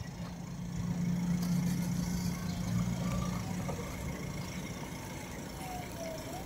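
A vehicle engine idling with a steady low hum that fades out about halfway through.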